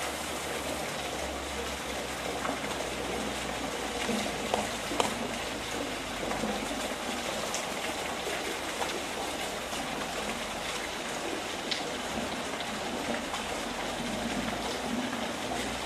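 Water pouring from an inlet pipe into a koi holding vat: a steady splashing and trickling, with a couple of sharper splashes about four and five seconds in.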